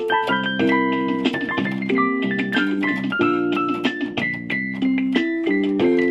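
Yamaha PSR-150 portable keyboard being played: a quick run of melody notes over held chords, each note starting crisply, as the instrument is tested after a repair.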